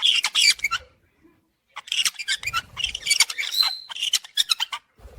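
Parrots chattering and squawking in quick, high-pitched calls. They break off for under a second about a second in, then start again, with one short held whistle near the middle.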